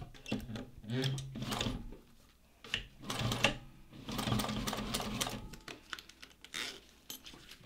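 Juki DU-1541 industrial walking-foot sewing machine topstitching in short runs, starting and stopping several times. The longest run comes about four seconds in.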